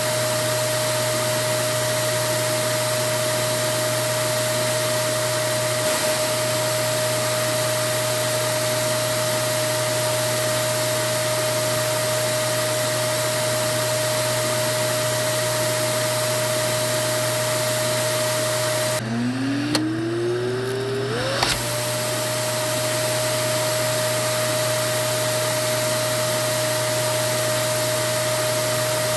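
Vacuum cleaner motor running steadily with a high whine over its rushing airflow. About nineteen seconds in, the sound cuts out and the motor spins back up, its whine rising to full pitch within about three seconds.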